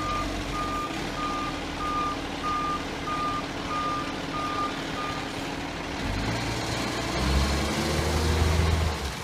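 Garbage truck's reversing alarm beeping steadily about twice a second, stopping about five seconds in; then the truck's diesel engine revs up with a rising note as it pulls away, easing off near the end.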